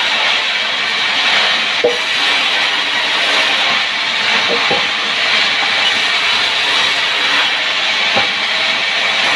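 Power wood saw running through timber: a steady, loud, hiss-like noise with a few short knocks, about two seconds in, near the middle and near the end.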